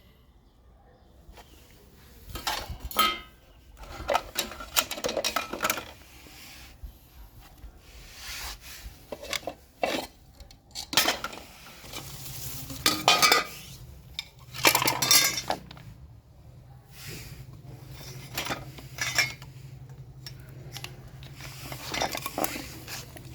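Small hard objects being handled and knocked together: an irregular run of clinks, taps and knocks. A low steady hum comes in about halfway through.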